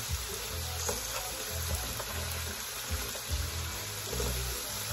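Hot oil sizzling steadily in an aluminium pot of sautéing onions as pieces of pork are dropped in, with a few faint ticks as pieces land.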